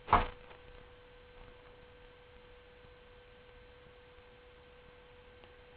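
A faint, steady electrical hum on a single tone over otherwise near silence, with one short sound just at the start.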